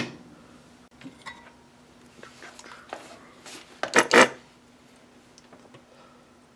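Hard objects knocking on a workbench as a circuit board and tools are handled: a sharp knock at the start, light taps and rattles, then a louder cluster of knocks about four seconds in. A faint steady hum runs underneath.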